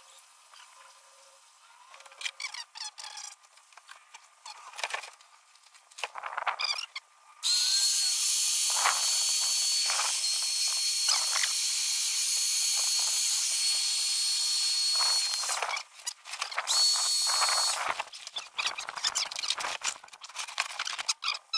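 Handheld electric air pump running steadily with a thin high whine for about eight seconds as it inflates a vinyl pool pillow, stopping, then running again for about a second. The vinyl pillow rustles and crinkles as it is handled before and after.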